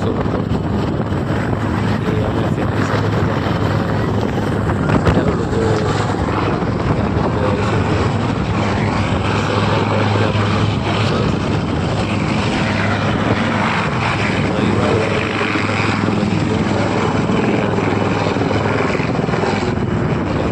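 Aircraft engine and propeller noise, loud and steady, with a constant low drone.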